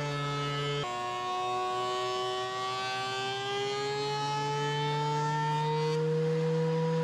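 DeWalt benchtop thickness planer running with a steady high whine. About a second in, the pitch drops sharply as the cutterhead bites into a glued-up hardwood panel, then climbs slowly back up over the next five seconds as the board feeds through and the load eases.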